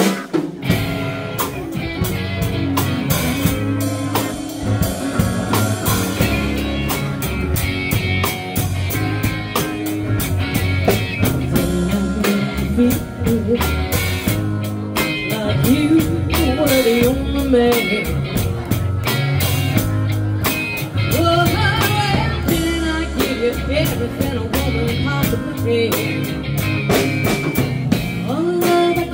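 Live band playing amplified rock: a drum kit keeping a steady beat under electric guitar and bass guitar, with a woman singing lead from about halfway through.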